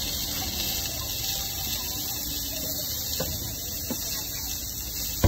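A tteokgalbi patty, ham and sausage sizzling in oil on a flat-top griddle: a steady hiss, with a few faint ticks and one sharp click at the very end.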